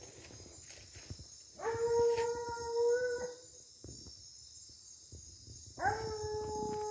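Hunting hound baying: two long, steady howls, the first about a second and a half in and the second near the end, still going at the end. Faint rustling of brush lies underneath.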